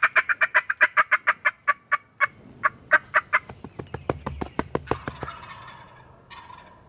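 Turkey calling: a fast, even run of sharp notes, about six a second, that breaks up and fades after about three seconds.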